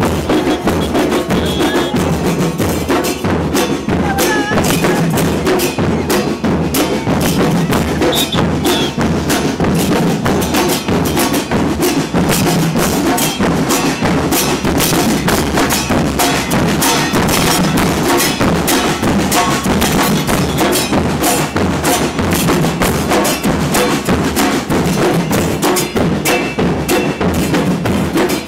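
Carnival percussion troupe playing: drums keep up a loud, fast, unbroken beat with sharp cracking hits over it.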